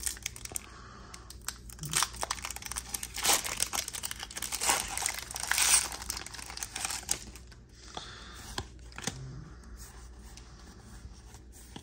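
Foil wrapper of a Pokémon booster pack crinkling and tearing as the pack is opened. The crackling is busiest in the first seven seconds or so, then gives way to quieter handling with a few light clicks.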